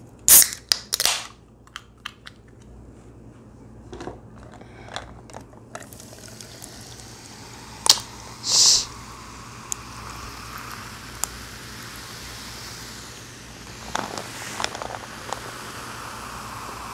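A can of Canada Dry ginger ale cracked open with a sharp pop and a short fizzing hiss about half a second in. From about six seconds in the soda is poured into a glass of ice and fizzes steadily, with a few sharp clicks.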